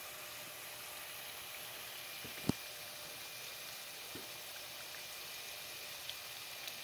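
Oliebollen batter deep-frying in a pot of hot oil: a steady sizzling hiss, with one sharp click about two and a half seconds in and a couple of fainter ones later.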